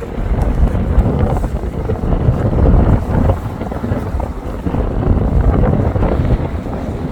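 Strong wind buffeting the microphone: a loud, gusty low rumble that swells and dips unevenly.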